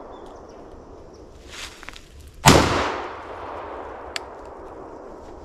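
A single shotgun shot about two and a half seconds in, ringing off for about half a second, fired at a squirrel running in the trees.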